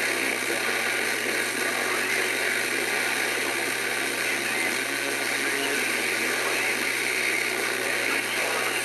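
Steady, even hiss of noise with a few faint constant hum tones running through it, unchanging in level.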